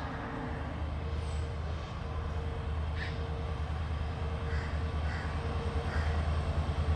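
Diesel locomotive approaching, its engine a low steady drone that grows louder toward the end. Faint bird chirps can be heard.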